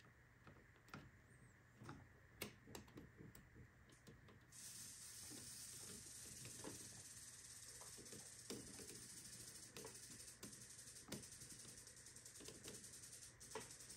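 Near silence: faint scattered clicks and taps as a thin metal tool is worked against a circuit board's pins, with a faint steady hiss coming in about four and a half seconds in.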